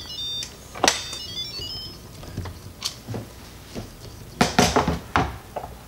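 Instant Pot electric pressure cooker sounding a short electronic tune of stepped high beeps over the first second and a half, as the lid is unlocked after the pressure is released. Then come a few clicks and knocks of the lid being turned and lifted off, the loudest cluster about four and a half seconds in.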